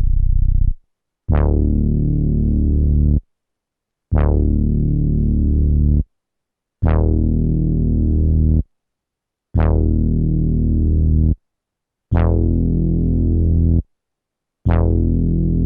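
Low synthesizer note sampled and played back on a 12-bit SP-1200 sampler, struck six times. Each note opens bright and dulls almost at once, holds for about two seconds, then cuts off abruptly, with short silences between.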